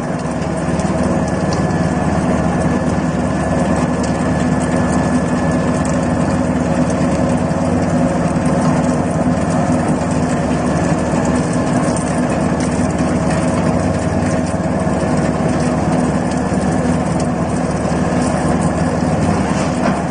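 Screw-type peanut oil expeller running steadily while pressing peanuts, a continuous mechanical hum from its motor and gearbox with a few steady tones in it.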